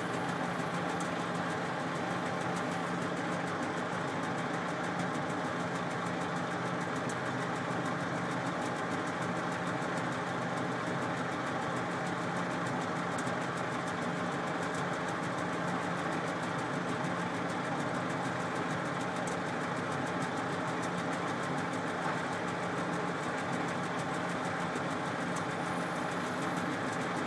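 Diesel engine of a Volvo A30C articulated dump truck idling steadily, heard from inside its cab.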